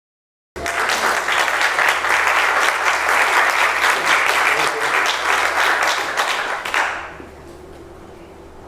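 Audience applauding, starting abruptly about half a second in and dying away about seven seconds in to a faint room hum.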